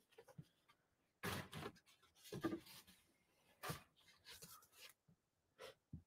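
A handful of short, faint rustles of paper as the sheets of a plant press holding pressed flowers are lifted and laid flat, with quiet gaps between.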